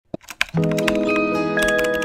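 Background music: a few sharp clicks, then sustained chords with a ticking beat come in about half a second in.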